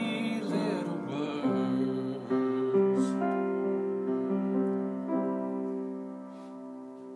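Upright piano playing slow, sustained chords in a gentle ballad accompaniment. The chords change a few times and the notes ring on, fading gradually toward the end.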